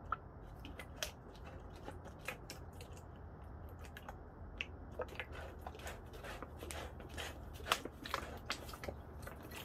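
Faint, irregular clicks and crackles from plastic soda bottles and a tornado-tube connector being handled and worked loose, thicker in the second half, over a low steady hum.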